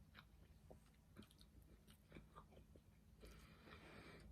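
Faint chewing: soft, scattered mouth clicks and small crunches of food being eaten, with a soft hiss near the end.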